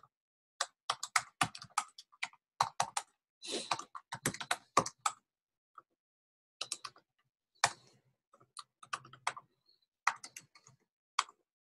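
Typing on a computer keyboard: quick runs of key clicks in several bursts, with short pauses between them.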